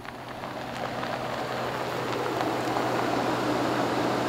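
Pickup truck approaching on a dirt road, its engine hum and tyre noise growing steadily louder as it nears.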